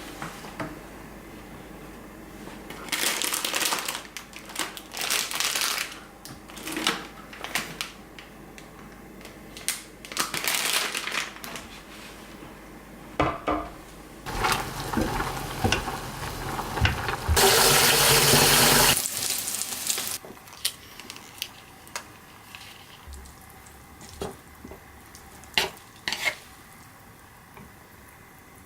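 Handling noises with dishes clinking and several bursts of hissing noise, the longest lasting about five seconds around the middle.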